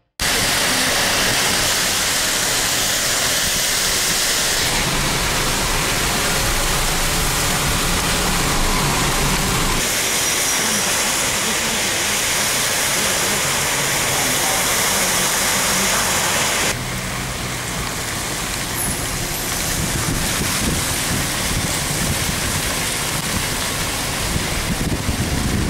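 Heavy rain falling on a road, a steady even rush of noise, with traffic on the wet surface. The sound shifts abruptly a few times as the footage cuts between shots.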